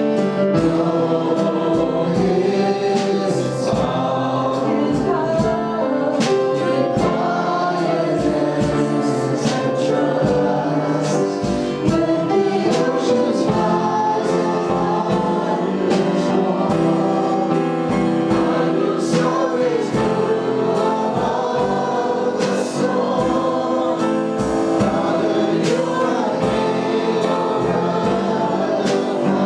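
Congregational worship music: a choir and congregation singing a gospel song over instrumental accompaniment with a steady beat.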